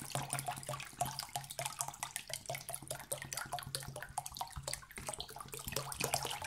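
Water pouring and glugging out of an upturned plastic bottle into a bowl of liquid, splashing unevenly, over a steady low hum.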